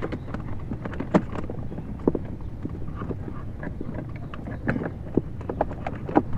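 Irregular light clicks and knocks of hands handling a plug and plastic console parts at the armrest 12-volt socket, over a low steady rumble.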